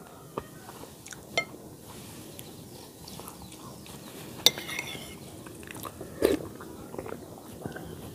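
Metal spoon clinking and scraping against a ceramic soup bowl while eating chicken soup, with chewing between spoonfuls. Several scattered clinks, the sharpest a little past halfway.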